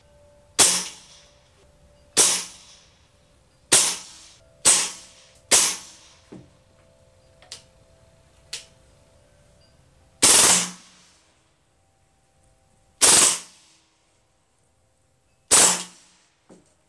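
Hatsan BLITZ .22 PCP air rifle firing: five single semi-automatic shots over the first six seconds, then three short full-automatic bursts of about half a second each, with a few faint ticks in between. The on-screen meter reads about 109 dB for the single shots and 117 to 129 dB for the bursts.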